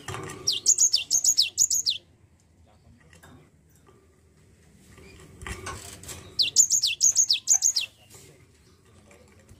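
Cinereous tit (gelatik batu) singing two quick phrases, each a run of six or seven high notes sweeping downward. The first comes about half a second in, the other about six and a half seconds in. A short scuffling noise comes just before each phrase.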